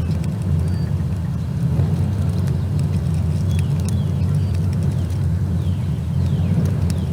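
Steady low rumble of outdoor ambience, with a few short, falling high chirps from small birds now and then.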